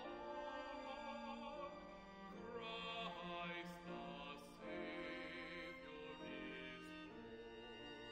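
Classical music in an operatic style, with long held notes carrying strong vibrato and several note changes.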